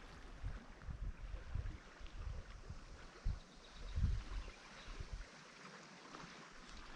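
Shallow river riffle running steadily, with irregular low rumbles of wind on the microphone that die away about five seconds in.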